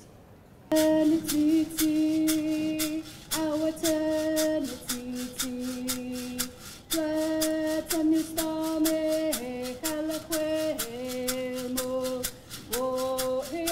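A woman singing in long held notes that step between a few pitches, over a steady struck percussion beat of about three strikes a second, starting just under a second in.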